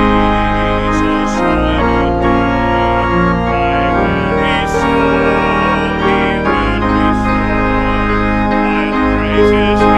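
Church organ playing a hymn in sustained chords, with deep bass notes that change every second or two, while a congregation sings along.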